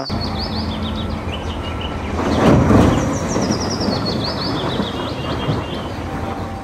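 A steady rumbling noise that swells about two and a half seconds in, with birds chirping in runs of short, quick, falling calls.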